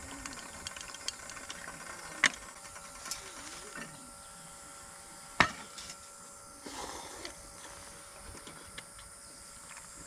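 Steady mechanical whir of a small electric fan, with two sharp metal clinks of a camping mug lid and cookware, about two seconds in and again about five seconds in.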